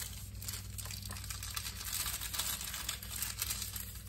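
Thin plastic wrapper crinkling as it is peeled off a rolled pie crust, over a steady low hum.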